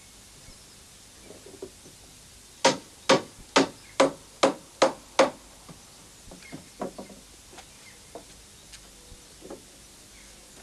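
Hammer striking the wooden planks of a jetty under repair: seven sharp blows about two a second, then lighter knocks and the clatter of boards being shifted.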